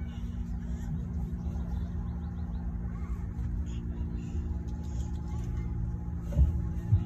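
A steady, low mechanical drone at an unchanging pitch, like a motor or engine running, over a low rumble, with two dull thumps near the end.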